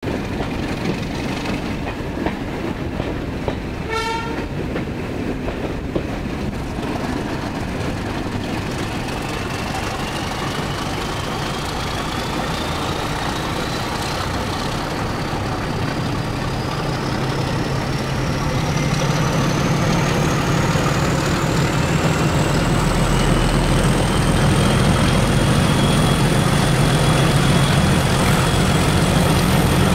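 Class 31 locomotive's English Electric 12SVT diesel engine opening up to full power in a tunnel: a steady rumble that grows louder through the second half, with a turbocharger whine rising steadily in pitch. A brief toot about four seconds in, over the clatter of the train.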